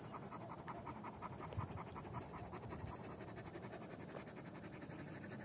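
A large dog panting quickly and rhythmically, about five breaths a second, out of breath after running. The panting grows fainter in the second half.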